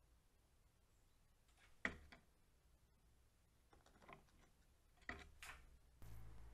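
A few short, sharp taps and knocks on wood: one loud one about two seconds in, a small cluster around four seconds and two more after five seconds, from a magpie landing and pecking on the wooden feeder board beside the camera. About six seconds in, a low steady hum comes in.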